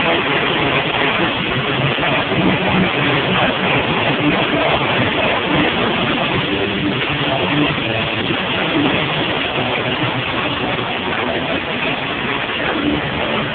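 Live band playing loud: electric guitar through an amplifier and a drum kit, heard as a dense, continuous wash of sound.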